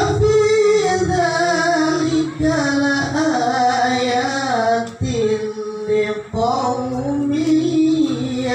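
Quran recitation in the melodic tilawah style by a qari: long ornamented phrases held on one voice, with a short breath break about five seconds in. The voice is worn by a cough.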